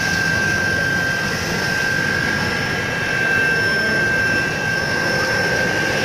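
Seafood washing machine running: a steady rush of water from its spray bars and churning wash tank, with a constant high whine from the machine over it.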